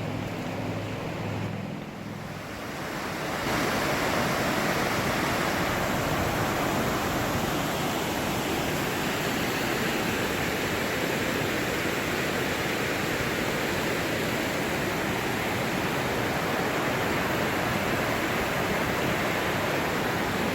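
Waterfall rushing with a loud, steady roar that sets in suddenly about three seconds in.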